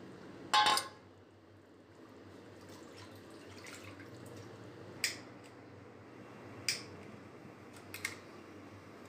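Stainless steel bowl knocking against a steel pot: one loud metallic clank with a brief ring about half a second in, then three lighter clinks or knocks spread over the following seconds.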